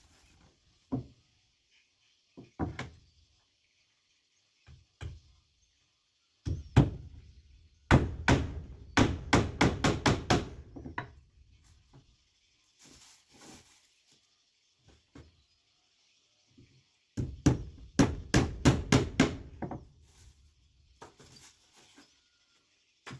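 Hammer blows on wood. There are a few single knocks first, then two runs of quick strikes, about three a second, the first about eight seconds in and the second about seventeen seconds in.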